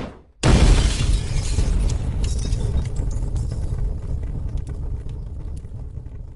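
Logo sound effect: a sudden loud crash-like noise about half a second in, fading slowly over about six seconds with scattered crackles.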